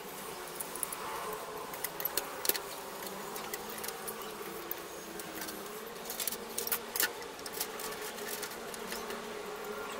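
Clicks and light taps of aluminium rod elements and plastic clips being handled and pulled off a Yagi TV antenna on a wooden table, loudest in two clusters, over a steady buzzing drone.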